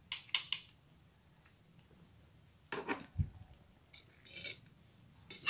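Small metal cat food bowl clinking and scraping as a cat eats wet canned food from it: short clinks in a few bunches, with a low knock about three seconds in.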